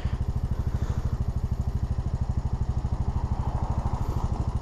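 Motorcycle engine running steadily, an even rapid putter that holds the same speed throughout.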